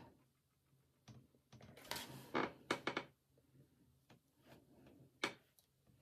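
Faint handling noises close to the microphone: soft rustles and a few small clicks clustered about two to three seconds in, then one sharper click a little after five seconds, with quiet between.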